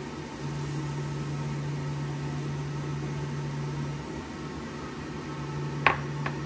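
Steady low electrical hum with a fan-like hiss from an induction cooktop heating a rectangular egg-roll pan, the hum cutting out for about a second near the middle and then coming back. Near the end, two sharp knocks.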